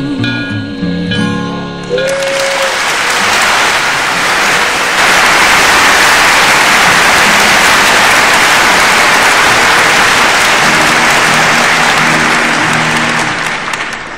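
Guitar music ends about two seconds in, and steady applause follows, with faint music returning underneath near the end.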